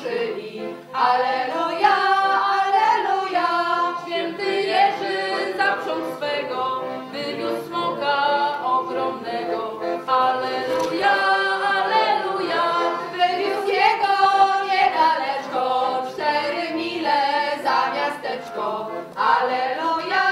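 A small group of voices singing unaccompanied, a traditional Polish Easter 'Alleluia' carolling song, in long sustained phrases with a short pause for breath about a second in and another near the end.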